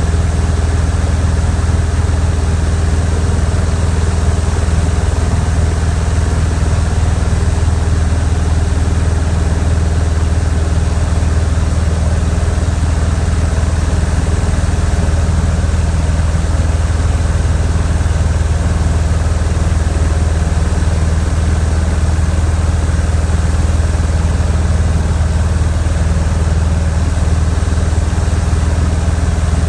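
Funk light airplane's piston engine and propeller droning steadily at constant speed, a strong low hum with no change in pitch.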